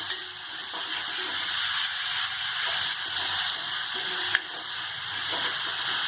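Garlic paste and turmeric frying in hot oil in a kadai: a steady sizzle, with one sharp click about four seconds in.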